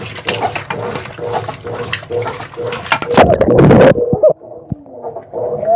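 Brastemp Ative! BWC10 10 kg washing machine agitating clothes in rinse water, with water sloshing in the drum over a steady hum. About three seconds in comes a loud splash, then the sound turns dull and muffled, heard from under the water.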